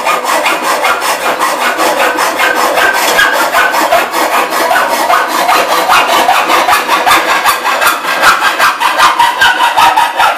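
Hand hacksaw cutting through rusty steel angle iron, the blade rasping in quick, even back-and-forth strokes.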